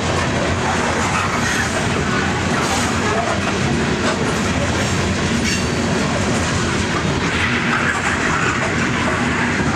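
Freight train of open-top hopper cars rolling past close by: a steady rumble of steel wheels on the rails, with clickety-clack as the wheels cross the rail joints.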